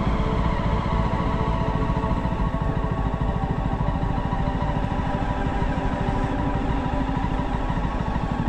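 Jawa motorcycle's single-cylinder engine running steadily on the move, with a rapid, even firing beat.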